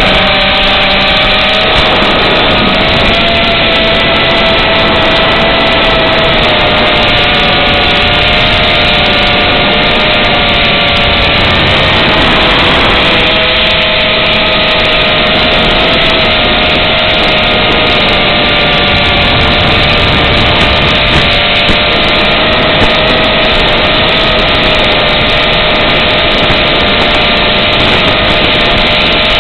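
Brushless motors and propellers of an Eachine Racer 250 FPV quadcopter in flight, a steady whine that wavers slightly in pitch with throttle, heard over the analog video link's audio with heavy hiss.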